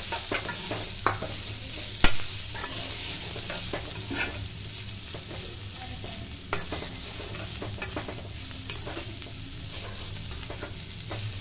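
Bitter gourd slices frying in oil in a black iron pan with a steady sizzle, as a spatula stirs and scrapes them. There are a few sharp knocks of the spatula on the pan, the loudest about two seconds in.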